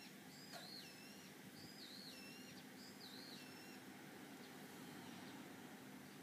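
Faint bird calls: three short whistled phrases, each a wavering high note dropping to a lower one, about one a second during the first four seconds, over a faint steady hum.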